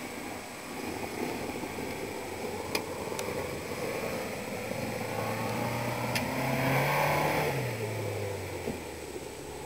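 A small vehicle engine running; its pitch climbs from about five seconds in, peaks near seven seconds as it revs, and then drops back. A couple of sharp clicks come in between.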